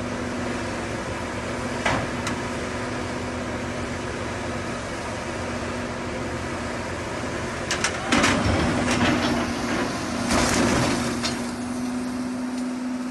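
Caterpillar 320C excavator's diesel engine running steadily, then loud crashing and clattering about eight seconds in and again around ten seconds in as the machine tips off the side of a lowboy trailer and lands on its side.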